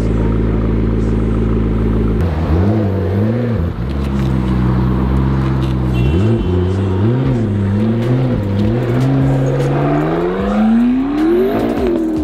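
A McLaren's twin-turbo V8 idles steadily, then is blipped in a few quick revs. Near the end it revs up in one long climb, drops sharply as if shifting up a gear, and climbs again.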